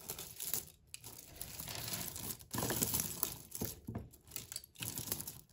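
Strings of beads and metal chains clicking and rustling against each other as hands rummage through a pile of costume jewellery.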